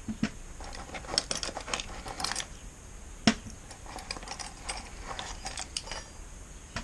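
Metal spanners clinking and clicking against each other as they are handled, a run of short irregular clinks with one sharper knock about halfway through.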